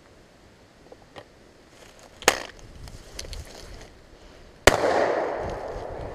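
An Astra model 850 12-gauge side-by-side double-barrel shotgun fires once about three-quarters of the way in, a loud sudden shot whose report hangs on and fades for over a second. A single sharp snap comes about two seconds before the shot, with a few faint clicks and rustles before that.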